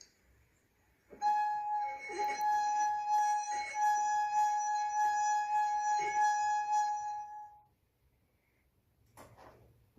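A drinking glass made to sing by rubbing its rim: one steady, high, pure tone held for about six seconds, swelling slightly now and then, that stops near the end with a faint knock of glass after it.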